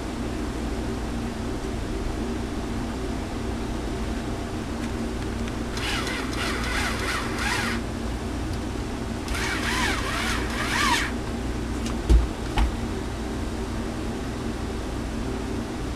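Hand screwdriver turning screws into a cooling fan mounted on an amplifier's finned aluminium heat sink: two stretches of scraping with wavering squeaks, over a steady low hum. Two short knocks follow about three-quarters of the way through, as the fan and heat-sink assembly is handled.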